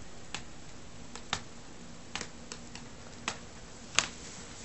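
Irregular sharp clicks and ticks, about eight in four and a half seconds, the loudest near the end, over a faint steady low hum.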